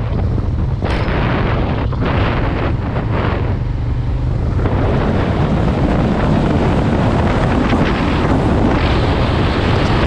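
Motorcycle on the move: wind buffeting the microphone over the engine's steady low running.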